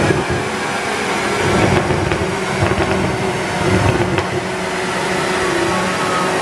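BMW M140i's turbocharged 3.0-litre straight-six running at a steady engine speed on a rolling-road dyno, with a steady whir from the dyno rollers, the pitch holding level with a few small swells in loudness.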